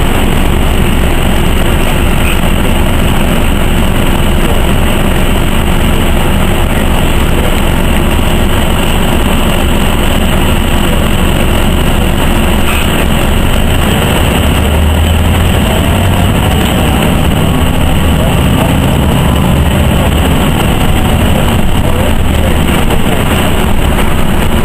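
Cabin noise aboard a moving NovaBUS RTS city bus: the engine and road noise run steady and loud.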